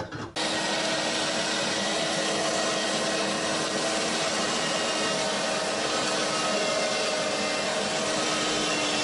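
Electric meat grinder running steadily under load, grinding onion and garlic for dumpling filling with a constant motor hum. It starts suddenly just under half a second in.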